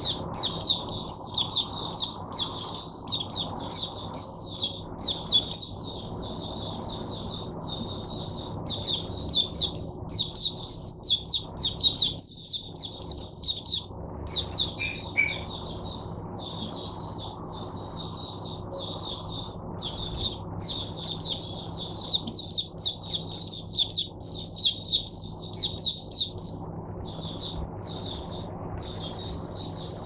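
A white-eye (mata puteh) singing a long, fast twittering song of high chirps, almost without pause, breaking into shorter phrases with small gaps near the end. A faint steady low hum lies underneath.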